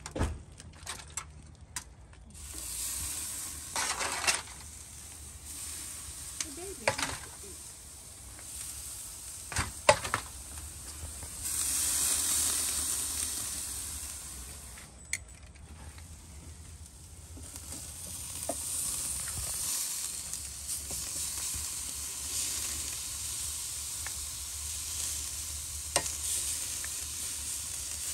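Filet mignon steaks sizzling on the grate of a Mini Max kamado grill over hot lump charcoal, the sizzle swelling louder about a third of the way in and again later. Scattered sharp clicks and knocks of handling break in several times.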